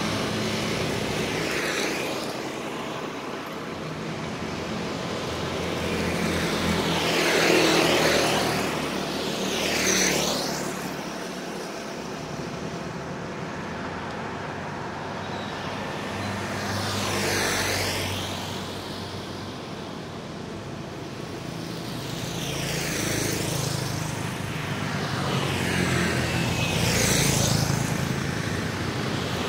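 Street traffic passing close by: motor scooters and cars driving past one after another, each pass swelling and fading, about six in all, over a steady low hum of engines.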